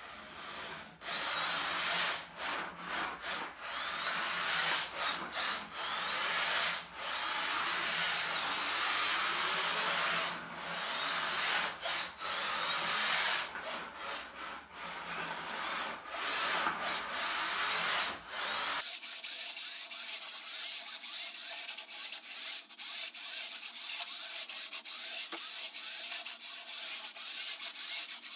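Combat robot's brushed RS550 drive motors and BaneBots P60 planetary gearboxes whining as it drives around in short runs, the whine rising and falling as it speeds up and slows, with brief pauses between runs.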